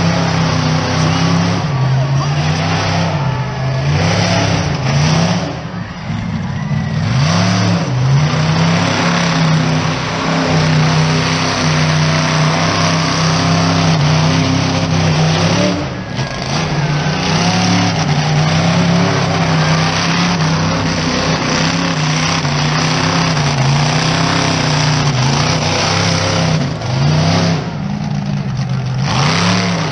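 Monster truck engine revving hard, its pitch rising and falling again and again as the truck spins and tears around the dirt arena, with a few brief drops off the throttle.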